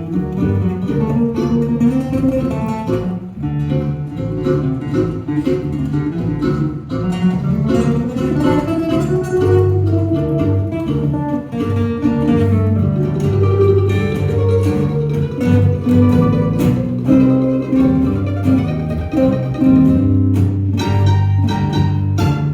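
Acoustic string band playing an instrumental break in a tango, guitar to the fore over a bass line.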